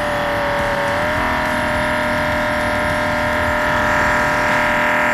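Patriot Cannon mini jetter's electric motor and high-pressure pump running steadily under load through a spinner nozzle at about 2,900 psi, with a steady whine that steps up slightly about a second in.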